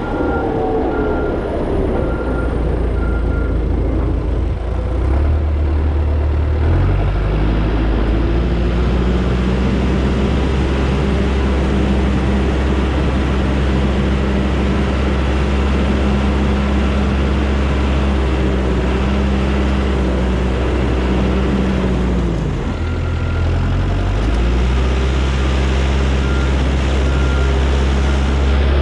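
Caterpillar 257 track skid steer's diesel engine working under load, its speed dropping at the start, climbing back up about 7 seconds in, holding steady, then dipping and rising again near the end. A reverse backup alarm beeps at the start and again when the revs dip.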